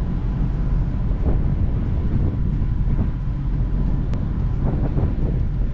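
Steady low rumble of wind buffeting the microphone on a docked ferry's deck, over the hum of the ship's machinery, with a sharp click about four seconds in.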